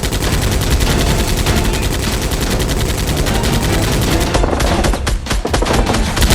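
Rapid automatic gunfire, a continuous stream of shots that breaks up into shorter bursts with gaps about four seconds in. It is most likely gunfire sound effects laid over a staged Nerf-blaster battle.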